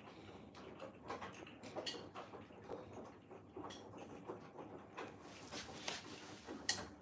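Faint, irregular ticking and light taps from a suction-cup spinner toy on a fridge door as a cat bats it and it spins, with a sharper click near the end.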